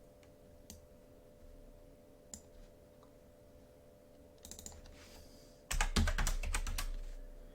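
Typing on a computer keyboard: a few scattered key clicks, then a quick, louder run of keystrokes about six seconds in, over a faint steady hum.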